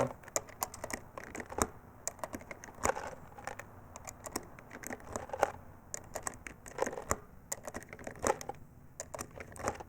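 9mm cartridges being pushed one at a time into a Sig Sauer P320 pistol magazine, with irregular small clicks and rattles of brass and metal.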